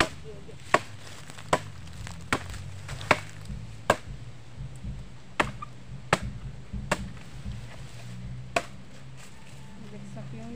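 Machete chopping a wooden branch into firewood: about ten sharp chops, roughly one every second, stopping about eight and a half seconds in.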